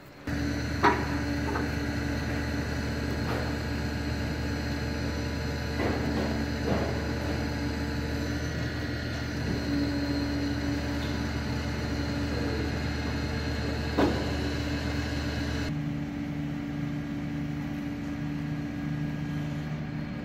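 Truck engine and hydraulic knuckle-boom crane running steadily while a steel barrel is lifted, with a few sharp clanks from the barrel and rigging. The running note changes a few seconds before the end.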